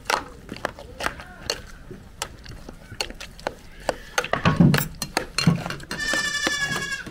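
A metal ladle clicks and scrapes against a metal cooking pot as pumpkin pieces are stirred. A young goat bleats once, high-pitched, for about a second near the end. A short low sound comes about halfway through.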